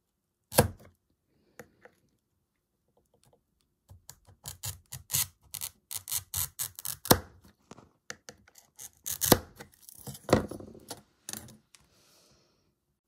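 Hand-held glass cutter's wheel scoring a pane of glass. There is a single sharp tick about half a second in, then from about four seconds in a dense run of rapid crackling ticks lasting some seven seconds, a few of them louder.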